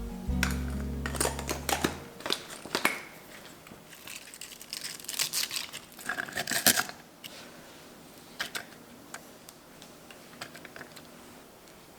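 Crinkling and rustling, like plastic or paper packaging being handled, with a scatter of light clicks. It is loudest between about four and seven seconds in. Background music fades out in the first two seconds.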